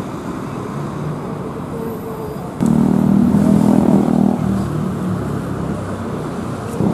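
Diesel bus and coach engines running in street traffic. About two and a half seconds in, one engine gets suddenly louder and runs hard for about two seconds, as a bus pulls away, before settling back to a steady rumble.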